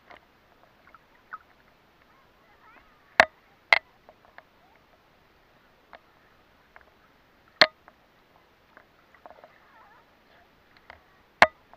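Seawater lapping and splashing against a camera held at the water surface, with four sharp slaps standing out above a faint watery hiss and small clicks.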